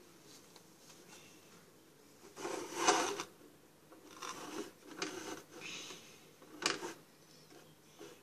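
Rubbing and rustling handling noises as a paper napkin is wiped over the face and the plastic Pie Face game unit is moved about. The loudest stretch comes about three seconds in, and a short sharp knock follows near the end.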